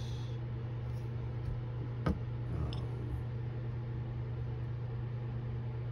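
Steady low mechanical hum, with one sharp tap or click about two seconds in.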